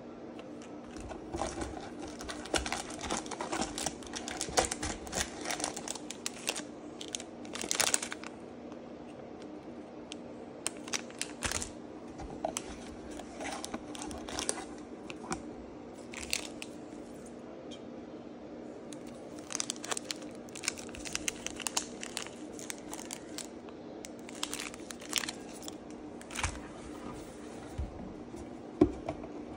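Crinkling and clicking of plastic and cardboard packaging from a Pokémon 151 Elite Trainer Box being handled and unpacked, in bursts with pauses, over a faint steady hum. A single sharp knock near the end.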